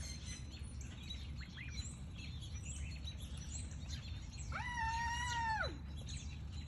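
Ducklings peeping: many short, high chirps, with one longer held call lasting about a second just past the middle, over a steady low background rumble.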